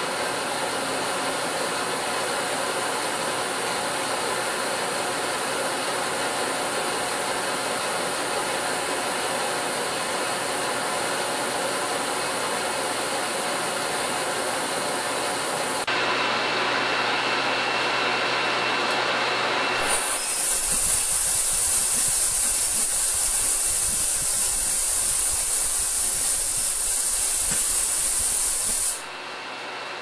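Water-filled ultrasonic cleaning tank running: a steady hiss with several faint steady tones while driven at 100 kHz. About 20 seconds in, the 38 kHz ultrasonics come on with a louder, rougher hiss of cavitation in the water, which cuts off suddenly near the end.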